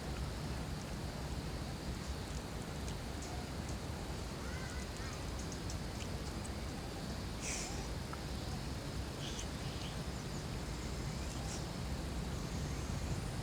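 Campsite ambience: a steady low rumble with distant children's voices and a few short high cries.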